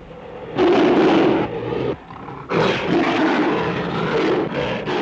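Film sound-effect monster roars from the fight between a giant ape and a Tyrannosaurus: two long, rough roars, the first about a second long and the second about two seconds, with a short break between them.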